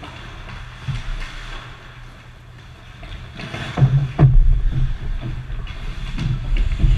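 Ice hockey rink play close to the microphone: skate blades hissing and scraping on the ice, over a steady low rumble, with heavy thuds against the boards about four seconds in and again near the end.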